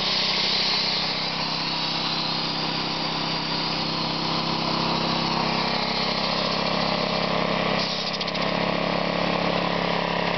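Briggs & Stratton 3.5 hp lawnmower engine running steadily under load, belt-driving a homemade air compressor that is pumping against high tank pressure near 125 psi. There is a slight dip in level about eight seconds in.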